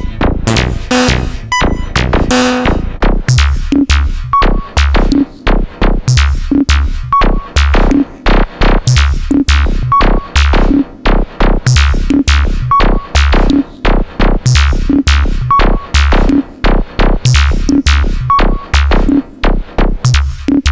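Monophonic AS Synths Prima modular synthesizer patch played by a MIDI sequence: pitched bass notes and short percussive hits in a fast, busy phrase that repeats about every three seconds. The snare-like hits are dense high-pitched notes from the same single voice.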